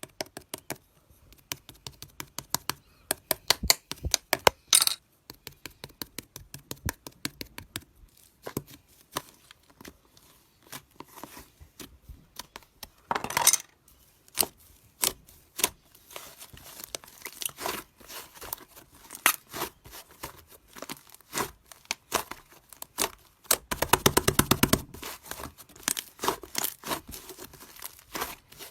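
Clear slime being squished and worked by hand, giving many sharp pops and clicks. A denser, crackly run comes about 13 seconds in and again around 24 seconds.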